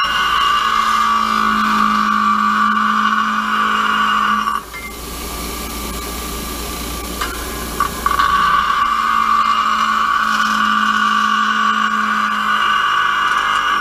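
Bench grinder wheel grinding a small hand-held metal piece, with a steady grinding hiss over the motor's hum. The grinding stops a little under five seconds in and resumes about three and a half seconds later, the grinder running on quietly in between.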